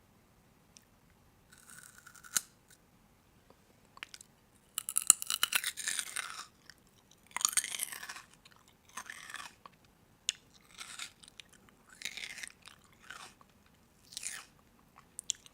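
Someone chewing crunchy food close to the microphone, in irregular crackling bursts with short pauses between bites.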